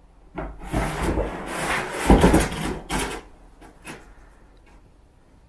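Kittens scratching and scrabbling at a box: a rough, rasping rustle lasting about three seconds, followed by two short knocks.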